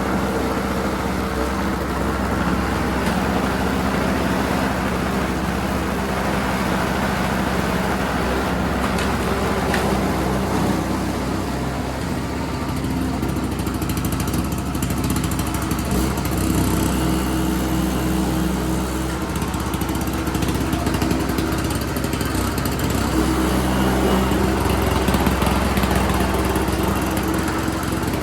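Ariens 722 snowblower's 7-horsepower Tecumseh two-stroke engine running steadily, its pitch shifting slightly a couple of times, while still warming up.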